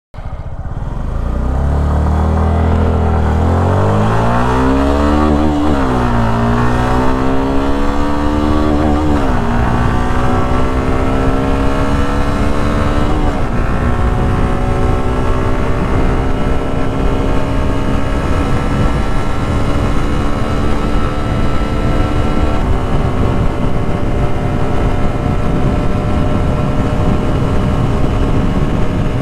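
A Suzuki Gixxer SF's single-cylinder engine accelerates hard through the gears. Its pitch climbs and drops back at three upshifts in the first half, then rises slowly and steadily in top gear toward top speed. Heavy wind rush on the microphone runs underneath.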